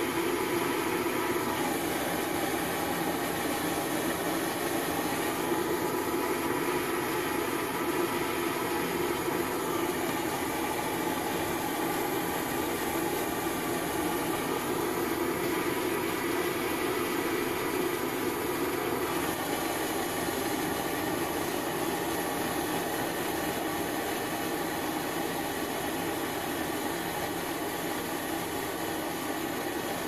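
A handheld gas torch burning with a steady flame noise as it heats the cup of an Anderson plug terminal to melt solder in it.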